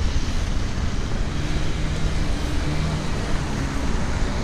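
Road traffic: passing cars' tyre and engine noise, steady, with a low rumble underneath.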